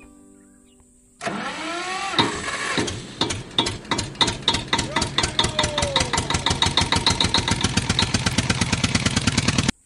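Tractor engine starting: it cranks and catches, then runs with a quick, even chug, and cuts off abruptly near the end.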